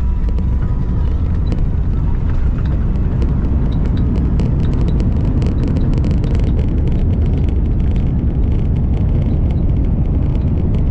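Cabin sound of an Airbus A350-900 rolling out after landing on a soaked runway: a loud, steady low rumble of the tyres and the Rolls-Royce Trent XWB engines, with the engines in reverse thrust throwing up spray. From about four seconds in, a dense crackle of clicks rides over the rumble.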